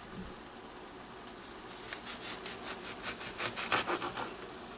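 Knife slicing a white onion on a wooden cutting board: a quick run of about a dozen crisp cuts, about five a second, starting about two seconds in.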